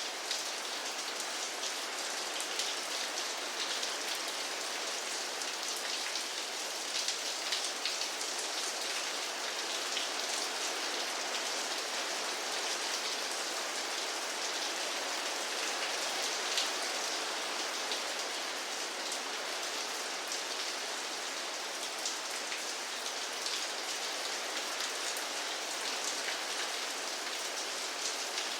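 Steady rain falling, a dense even hiss of drops with many small drop ticks and no thunder.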